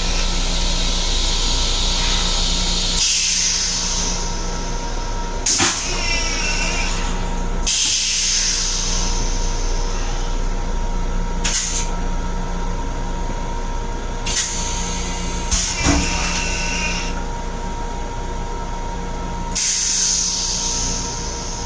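Steady hum and hiss of an MTA Long Island Rail Road M7 electric railcar, heard from inside its small restroom. A high hiss swells and fades several times, and a few sharp clicks and knocks come through.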